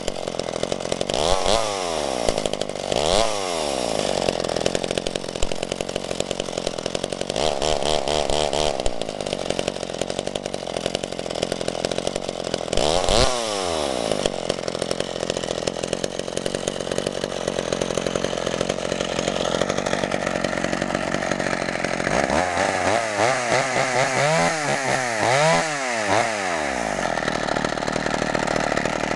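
McCulloch Mac 110 two-stroke chainsaw running, idling between quick blips of the throttle: two short revs in the first few seconds, another a little before the middle, and a run of several revs in a row near the end before it drops back to idle.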